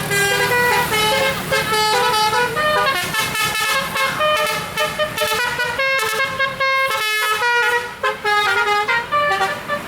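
A bus's 'basuri' telolet horn, a multi-tone musical air horn, playing a quick melody of stepped notes, with brief breaks around the middle.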